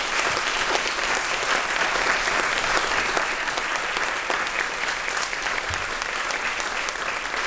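Audience applauding: dense, steady clapping from a roomful of people.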